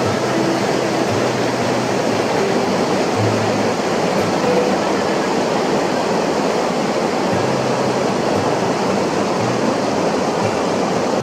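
Rushing river water: a steady, even noise.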